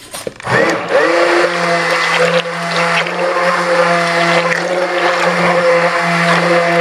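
Waring Commercial immersion (stick) blender switching on about half a second in, spinning up quickly, then running with a steady whine as it mixes soap-making oils and clay.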